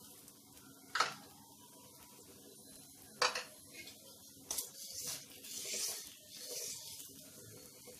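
Metal spoon and spatula clinking against a tawa griddle while ghee is spread on a cooking paratha: two sharp clinks, then a few seconds of soft scraping as the spatula works over the paratha.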